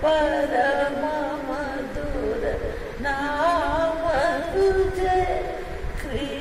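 Elderly woman singing a Marathi hymn close into a handheld karaoke microphone, holding long wavering notes. A new phrase begins about three seconds in and again near the end.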